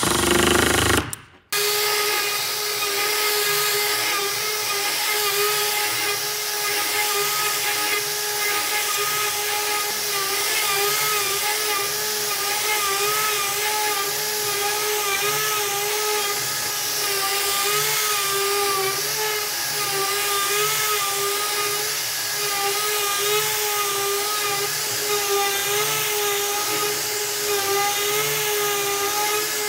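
A cordless impact driver briefly drives a screw into a wood block, then a plunge router with a slab-flattening bit runs steadily as it planes across the face of a wood slab. It gives a high, steady whine that wavers slightly in pitch over a continuous rushing cutting noise.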